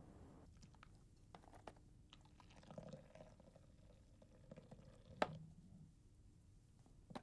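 Quiet, faint sounds of draft beer being drawn from a bar tap into a glass mug, with small scattered clicks and knocks and one sharp click about five seconds in as the tap handle is pushed shut.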